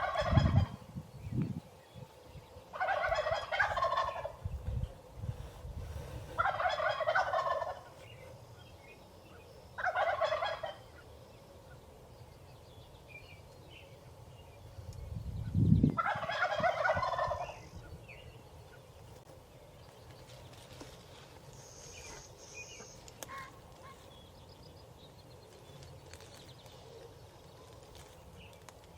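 Wild turkey gobbling, five rattling gobbles a few seconds apart over the first eighteen seconds or so.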